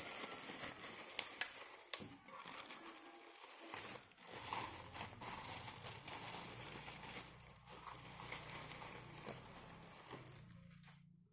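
Crinkling and rustling with scattered sharp clicks, like packaging being handled. A low steady hum comes in about four seconds in.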